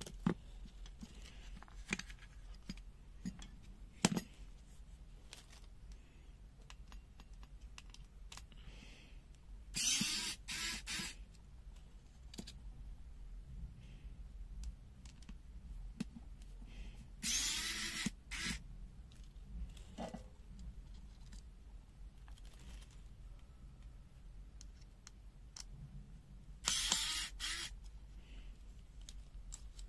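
Plastic case of a pocket multimeter being handled and opened up: scattered clicks and knocks, with three scraping rasps of about a second each.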